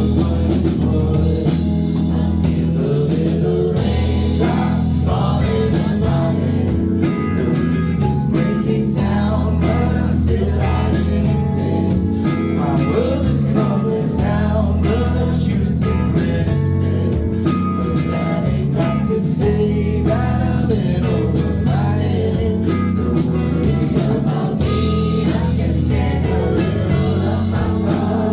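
Live band performing a song: a singer over guitar, a steady low bass line and drum kit.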